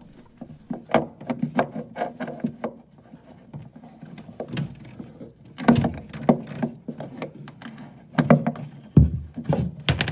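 Irregular knocks, clicks and scrapes of a Stay-Pal electrical staple tool working an electrical staple out of a wooden joist, in short bursts about a second in, around six seconds and again around nine seconds.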